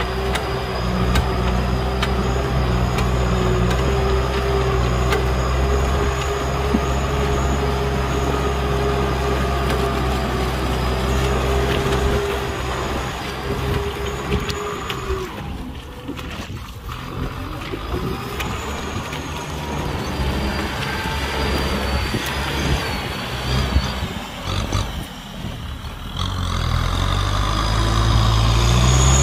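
Kubota M6040's four-cylinder diesel engine running steadily under load as it pulls a disc plow through wet paddy soil. The engine sound drops away in the middle as the tractor draws off. A tractor engine comes up louder near the end, its pitch rising.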